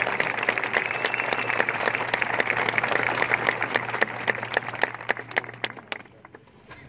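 Crowd applauding, with the clapping thinning out and dying away about six seconds in.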